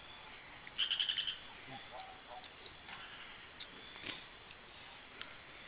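Night insect chorus, mostly crickets: a steady high-pitched drone, with a short rapid chirping trill about a second in.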